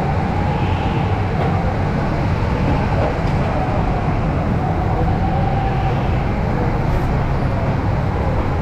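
Go-kart engine running with a continuous low rumble, its pitch holding fairly steady with only slight rises and falls.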